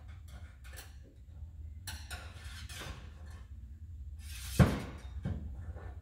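Light clinks and taps of a stiff antenna wire and tools being handled against a sheet-metal wall as the wire is fed through a drilled hole, with one sharper knock a little past halfway.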